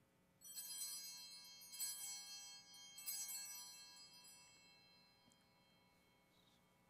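Altar bells, a cluster of small bells, rung three times in quick succession, each ring fading slowly into the next. They mark the elevation of the consecrated host at Mass.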